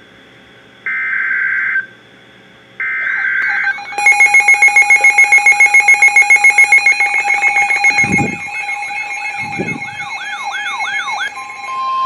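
NOAA Weather Radio SAME header data tones: short buzzy bursts about a second long with gaps of about a second. Then weather radio alert alarms go off together, a rapid beeping pulse about seven times a second with warbling siren tones over it, marking the start of a Severe Thunderstorm Warning. Two low thumps come partway through.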